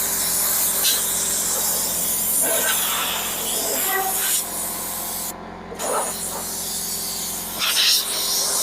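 Portable sawmill running: a steady engine hum under a loud, even hiss. The hiss drops out briefly about five seconds in, then resumes.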